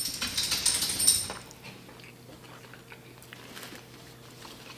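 Close-up eating sounds: a crackly bite into a chicken street taco lasting about a second, then quieter chewing with small clicks.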